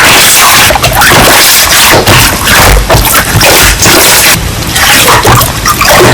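Slime being squished and pressed by hand: dense, continuous, loud wet crackling and squelching with rapid irregular pops.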